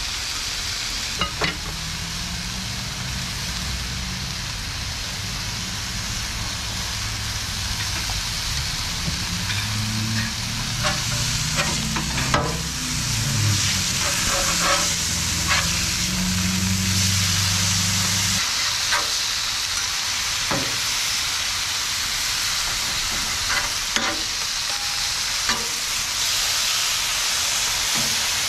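Sirloin steaks searing on a Blackstone flat-top griddle: a steady sizzle that grows louder partway through, with scattered clicks and scrapes of a metal spatula flipping the meat and cutting it up on the steel plate.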